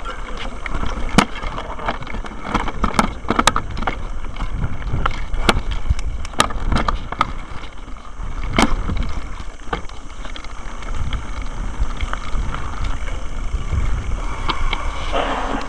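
Mountain bike riding fast over a dirt trail: a steady low rumble of wind and tyres, with sharp clicks and rattles as the bike goes over bumps. There is a brief louder swish near the end.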